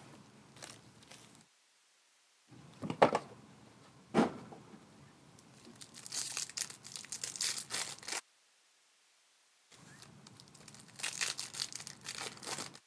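Wrappers of trading-card packs crinkling and tearing as packs are ripped open by hand, in several bursts, with two sharp snaps about three and four seconds in.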